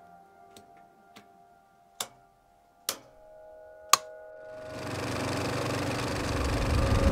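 A series of sharp clicks, a finger pushing in the reset buttons of an old fuse panel one by one, the last three louder, over a faint sustained musical drone. From about four and a half seconds a swell of rumbling noise builds and keeps rising.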